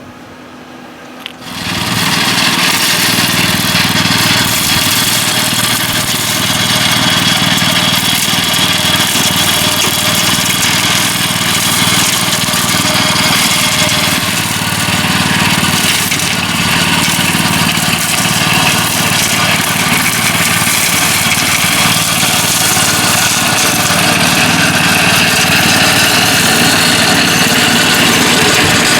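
Cordless, battery-powered brush cutter with a steel blade starting up about a second and a half in, then running steadily as it cuts grass.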